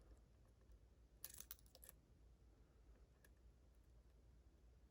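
Near silence with a few faint clicks of a hook pick lifting pins inside a Ruko 600 lock cylinder: a short cluster about a second in and a single click a couple of seconds later.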